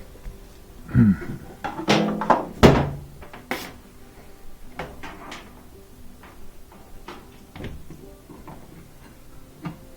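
Knocks and clunks of a Maytag dryer's sheet-metal cabinet panels being fitted and closed. A cluster of loud knocks falls about one to three seconds in, followed by scattered lighter taps.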